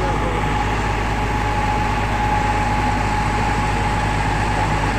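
Engine of a sewer-cleaning truck running steadily under load, a low drone with a steady high whine over it.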